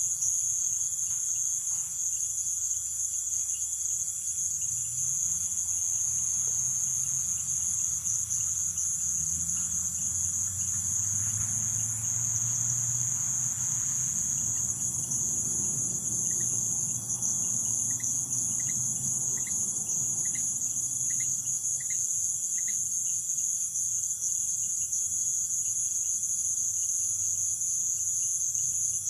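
Dense nighttime insect chorus of Amazon rainforest crickets and other insects, a steady high-pitched trill. About halfway through, a short series of about eight evenly spaced high pips sounds, and a faint low rumble swells and fades.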